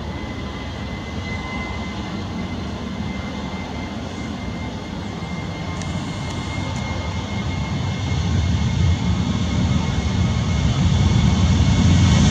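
Boeing 737-800's CFM56-7B jet engines running at taxi power, a steady rushing noise with a faint high whine. The sound grows louder over the last few seconds.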